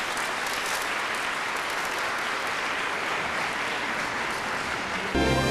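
A crowd applauding, a steady dense patter of many hands clapping. Orchestral music with sustained notes comes in sharply near the end.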